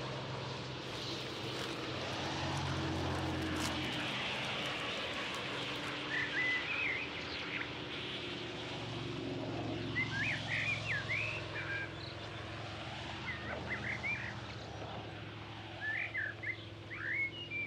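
Outdoor ambience: a steady low engine drone, with small birds chirping in short bursts from about six seconds in.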